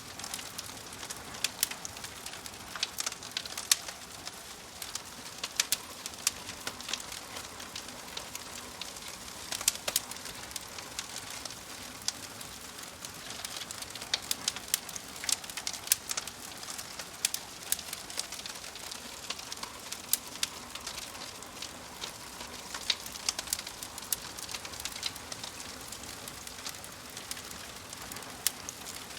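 Wood fire crackling in a fireplace: irregular sharp pops and snaps over a steady soft hiss of burning logs.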